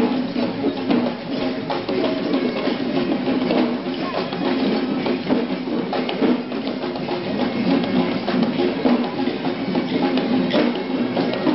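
Procession music: drums beating throughout, with a held, pitched melody running over them.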